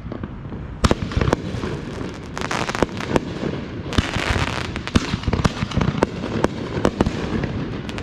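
Fireworks going off: a rapid, irregular string of sharp bangs and pops over steady crackling, with a thicker stretch of crackle about halfway through.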